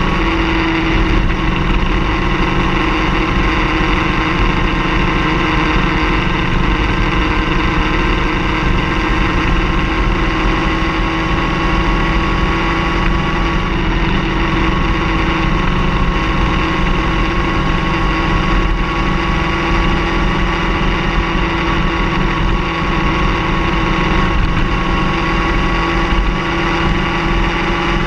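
A car engine running steadily, its pitch drifting slowly up and down.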